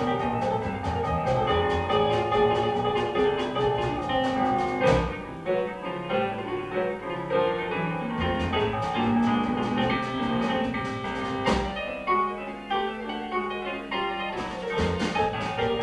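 Live traditional small-band jazz: a piano solo backed by an upright double bass and light drum-kit cymbal taps.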